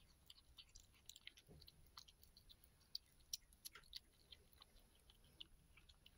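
A kitten eating a mouse: faint, irregular small mouth clicks as it chews and licks up the mouse's blood from the floor.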